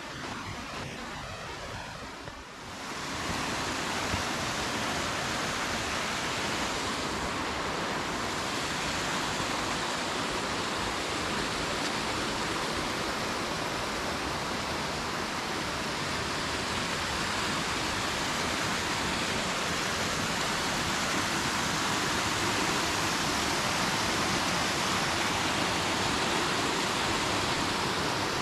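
A waterfall rushing with a steady roar of falling water. It gets noticeably louder about three seconds in, then holds steady.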